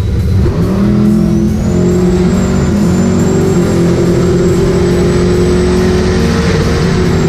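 Turbocharged LS V8 car engine pulling hard: its note climbs over the first couple of seconds, then holds steady and loud. A high turbo whine rises with it and stays on.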